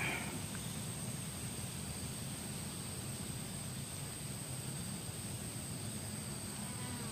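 Steady outdoor background noise: a low rumble under an even hiss, with a thin, high, steady tone.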